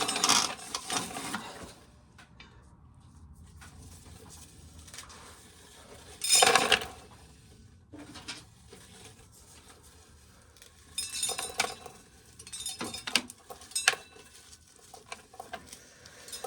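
Dried corn kernels clattering and clinking as an ear is shelled in a corn sheller, in uneven bursts: a stretch at the start, a short loud burst about six seconds in, and irregular clicking clatter over the last five seconds, with quieter gaps between.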